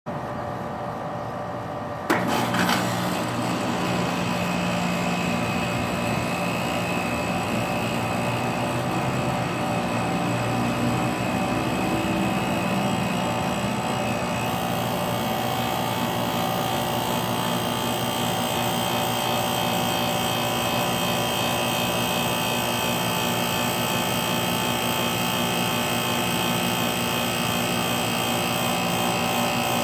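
1994 Rheem Classic 2.5-ton central air conditioner starting up: a sharp click about two seconds in, then the compressor and fan run with a steady hum.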